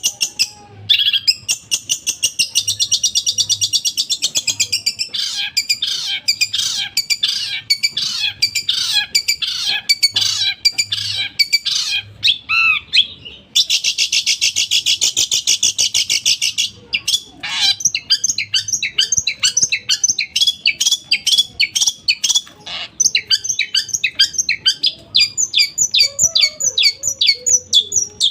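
Long-tailed shrike (cendet) singing a loud, fast, harsh song of rapid repeated notes and chatter, with a long unbroken trill in the middle; the song is built from imitated calls of other birds, including sparrow.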